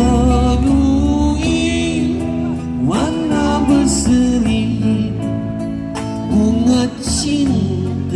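Live street band playing a Malay rock song: electric guitars and drums, with a singer's long held notes that slide and bend in pitch.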